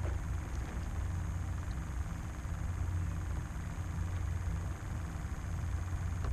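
Steady low mechanical hum, like a distant engine or machinery running without change.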